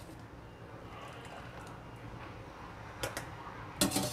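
Metal kitchen utensils clinking against a cooking pot: two light clicks about three seconds in, then a louder clatter near the end, over a low steady hum.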